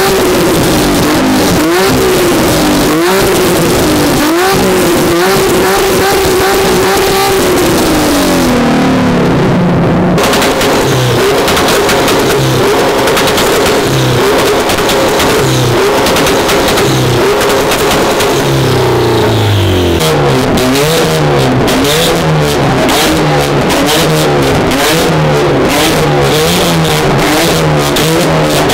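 Modified car engines free-revved hard: quick rev blips about a second apart, then a held high rev that drops about eight seconds in. From about twenty seconds in come rapid sharp exhaust pops and crackles, a tune set up to spit flames.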